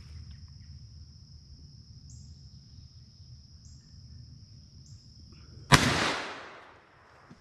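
A single 20-gauge shotgun shot about six seconds in: one sharp crack with an echoing tail that fades over about a second. It is fired at a squirrel high in a hickory tree.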